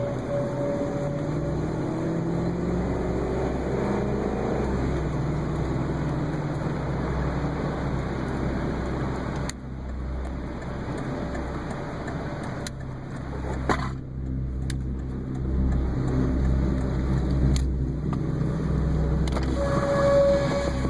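Car driving, heard from inside the cabin: the engine note rises as it speeds up over the first few seconds, over a steady low road rumble.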